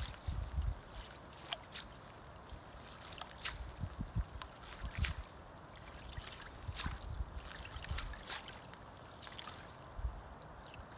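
Fishing net being hauled by hand out of a hole in the ice, with water trickling and dripping off the wet mesh and scattered light clicks and knocks as the net is gathered.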